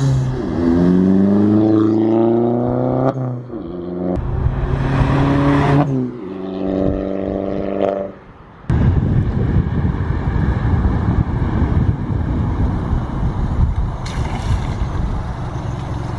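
Audi A1 1.4 TFSI engine with an induction kit and sports exhaust, accelerating as the car drives past and away. Its note rises and breaks off twice, like gear changes, and the exhaust is deeper, which the owner puts down to the induction kit. After about eight seconds the engine is replaced by a steady rush of wind noise.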